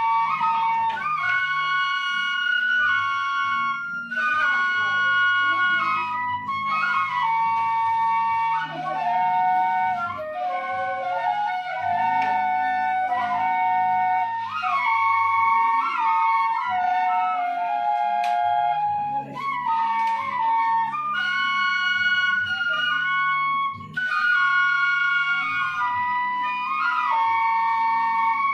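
A seruling emas ensemble of bamboo flutes playing a held melody in several parts at once, with low bass notes sustained underneath, in phrases separated by brief breaths.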